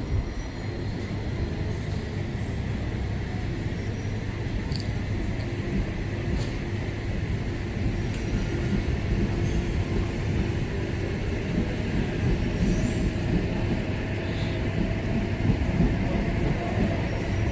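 Electric passenger train running at the station: a steady rumble that grows gradually louder.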